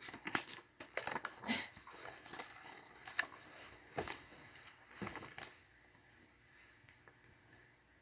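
Paper rustling and crinkling, as of workbook pages being handled and turned, with a few sharp clicks or taps. It is busiest over the first five seconds or so, then dies down.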